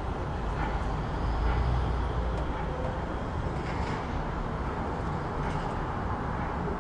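City street ambience: a steady low rumble of traffic, swelling briefly about a second and a half in, with scattered faint clicks and knocks over it.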